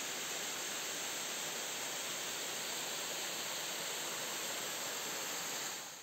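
Steady rushing of a small waterfall cascading down a rock face, fading out at the very end.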